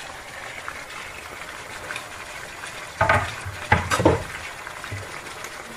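Low steady sizzle from a frying pan of ossobuco and diced onion. About three seconds in come two short bursts of knocking and scraping from a kitchen knife and a wooden cutting board against the pan.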